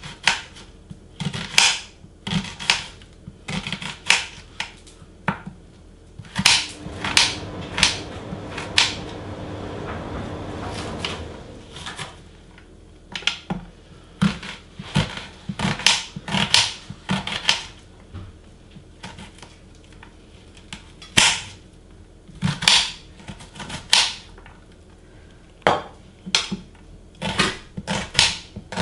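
Kitchen knife chopping onions on a glass chopping board: sharp, irregular clacks of the blade striking the board, coming in quick runs with short pauses between. A steady hiss is heard for about five seconds near the middle.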